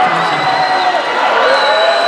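Crowd cheering and yelling, with long drawn-out shouts held over a steady din.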